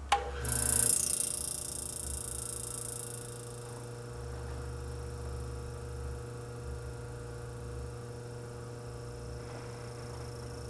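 Antique Frigidaire refrigerator compressor switched on with a click and starting up: a louder surge over the first few seconds, then a steady electric hum as it runs. It starts and keeps running on a test charge of butane refrigerant, showing the compressor is still working.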